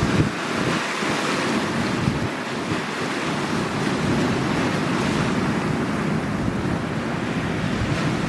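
Sea waves washing steadily on the shore, with wind buffeting the microphone in low, uneven rumbles.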